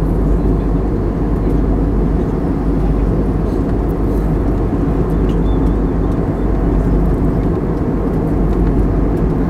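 Steady low rumble of airliner cabin noise, with the jet engines and airflow heard from inside the passenger cabin.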